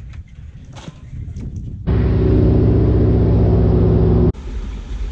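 Floatplane engine and propeller heard inside the cockpit in flight: a loud, steady drone that starts abruptly about two seconds in and cuts off suddenly near the end. Before and after it there is only a softer low rumble.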